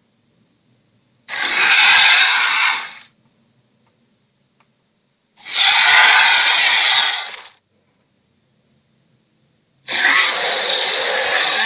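Electronic sound effects from a Transformersaurus toy's small speaker: three harsh, noisy bursts of about two seconds each, a few seconds apart, with a faint steady high whine in the gaps.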